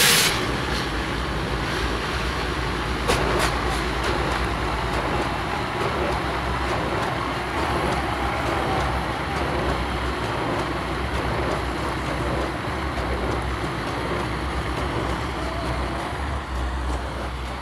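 Steady roar of a large stadium crowd with a deep rumble underneath during the team's run-out, with a short sharp burst about three seconds in.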